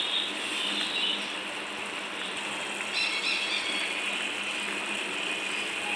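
Ridge gourd and shrimp curry sizzling and crackling steadily in a non-stick pan as its liquid cooks down.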